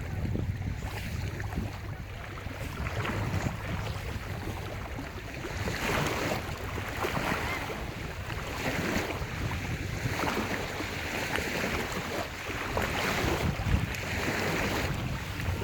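Small lake waves breaking and washing up on the shore, coming in surges of hiss every second or two, with wind rumbling low on the microphone.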